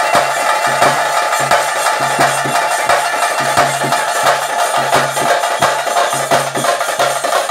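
Bhuta Kola ritual music: hand drums struck in a fast, steady beat over a dense, continuous instrumental sound.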